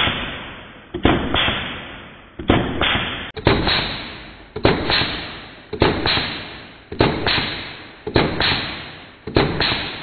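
Pneumatic brad nailer firing 2-inch brads into a wooden board, heard slowed down: about nine deep thuds, roughly one a second, each with a long fading tail.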